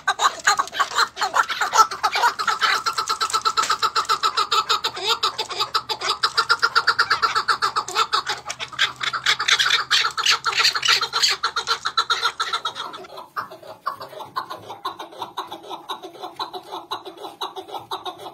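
Caged chukar partridges calling in a rapid, rhythmic chatter of repeated notes. About 13 seconds in, the calling changes abruptly to a quieter, steadier series of notes.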